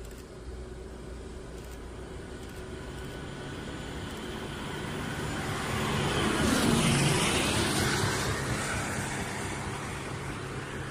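NRC Group Finland Ttr-99 rail vehicle approaching and passing close by. Its running noise grows louder to a peak about seven seconds in, then drops in pitch and fades as it goes past.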